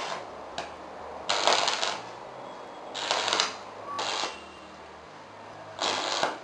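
Stick (arc) welding on a steel plate: the arc crackles and sizzles in four short bursts of under a second each, as the electrode is struck and broken off again.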